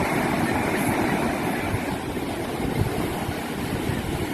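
Steady rush of ocean waves, with wind buffeting the microphone in uneven low rumbles.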